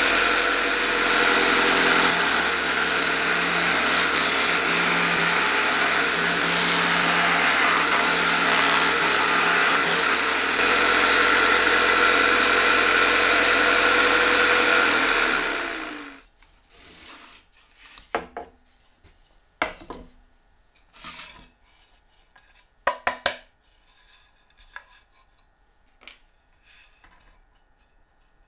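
A jigsaw mounted under a wooden table runs and cuts a circle in plywood, its tone shifting slightly twice as the cut goes on. It stops abruptly about sixteen seconds in, followed by scattered knocks and taps as the plywood pieces are handled.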